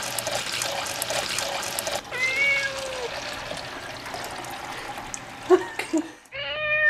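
Kitchen tap running steadily into a stainless steel sink, with a cat meowing once about two seconds in. The water stops near the end.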